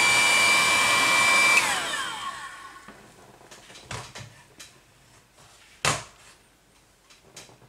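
Heat gun blowing steadily with a high whine, switched off about a second and a half in, its fan whine falling as it spins down. Then a few light knocks, the sharpest about six seconds in.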